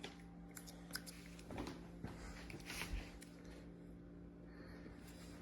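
A few faint, scattered clicks and soft rustles over a low steady room hum.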